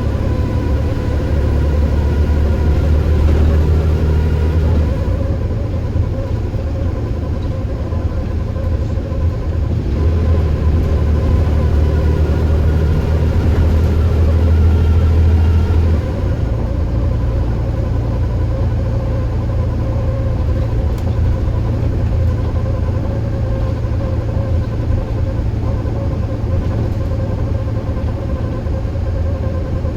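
Bus engine and drivetrain running on the move: a steady low rumble under several thin, steady whining tones. The rumble shifts in pitch and strength about five seconds in and again about sixteen seconds in.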